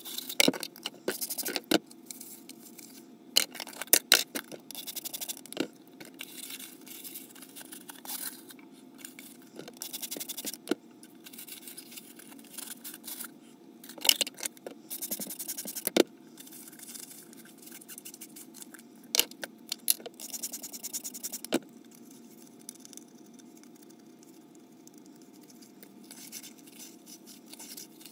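Dishes and utensils being handled during hand washing and drying: irregular sharp clinks and knocks with rubbing and scraping, in several bursts, over a faint steady hum.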